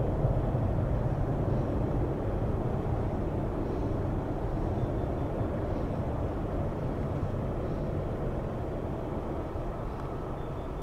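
Jet airliner engine rumble, slowly fading away.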